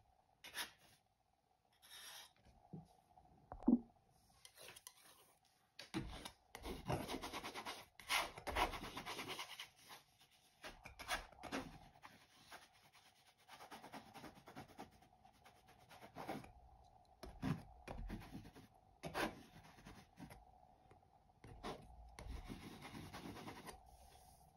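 Palette knife scraping and spreading thick paint across a stretched canvas in irregular strokes of a second or two, with a few sharp taps. A faint steady hum runs underneath.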